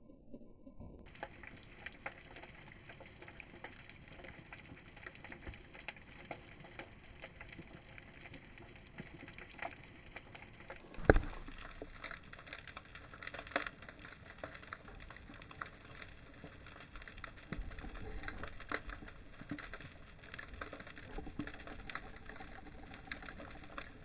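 Underwater ambience picked up by a camera in a waterproof housing: a steady crackle of many small irregular clicks over a faint hiss, with one sharp, much louder knock about 11 seconds in.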